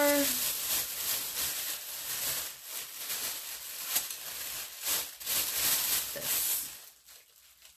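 Rustling and crinkling of packing material as a boxed lamp shade is unwrapped and lifted out, a busy run of crackles and scrapes that stops about seven seconds in.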